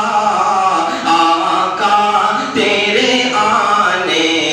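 A man's voice singing a naat verse unaccompanied in a melodic chanting style, drawing out long, wavering notes.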